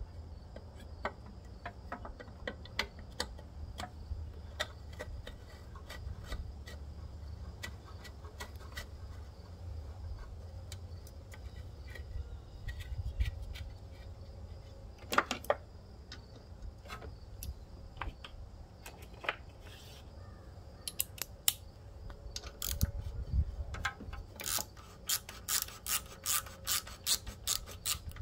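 Scattered clicks and knocks of metal parts and hand tools as the carburetor and air-filter housing are fitted back onto a lawnmower engine, then a socket ratchet clicking in quick strokes, about three a second, near the end as the mounting bolts are run in.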